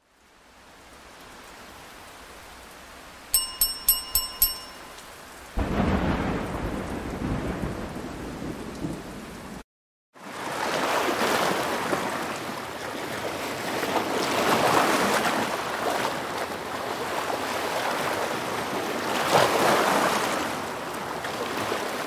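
Sound effects on an animated outro: a quick run of about six bright pings, then a heavy rumbling noise that cuts off suddenly, and after a short gap a steady rushing noise that swells twice.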